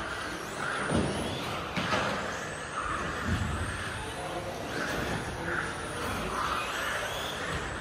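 MSB1 electric RC buggy running on a carpet track, its motor and drivetrain whining up and down with the throttle. A few sharp thumps of the chassis hitting the track, about one, two and three and a half seconds in.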